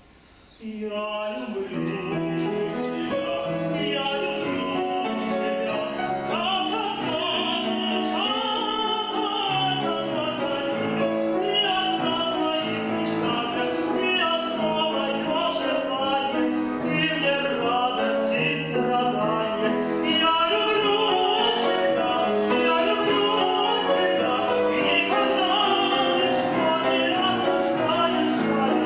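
A male classical singer sings an art song or aria in operatic style with piano accompaniment, starting about half a second in after a brief pause.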